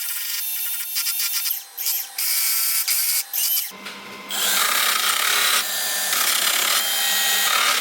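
Welding arc crackling on the sheet steel of a car's quarter panel as a crack is welded up. It comes in short stop-start bursts for the first three seconds, then runs more steadily from about four seconds in.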